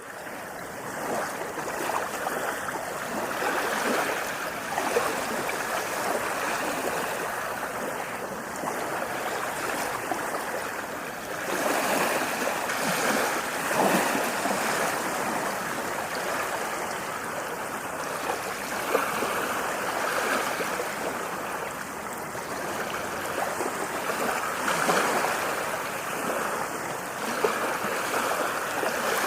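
Ocean waves: a continuous rush of surf that swells and eases every few seconds as the waves wash in.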